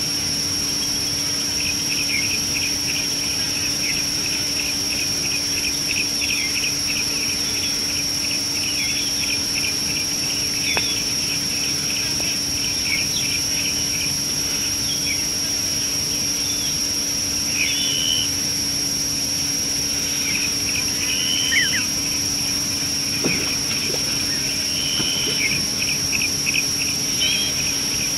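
Bush ambience: insects keep up a steady high-pitched drone throughout, over a low steady hum. Birds chirp rapidly for the first dozen seconds, then give a few separate whistled calls near the end.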